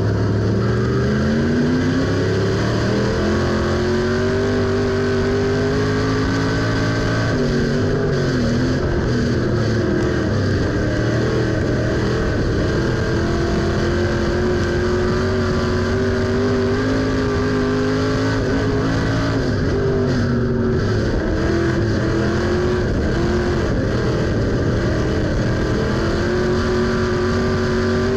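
USRA stock car's V8 engine heard from inside the cockpit at racing speed, pitch climbing as it accelerates and dropping as it lifts: it winds up over the first few seconds, dips about seven seconds in and again about twenty seconds in, and climbs once more near the end.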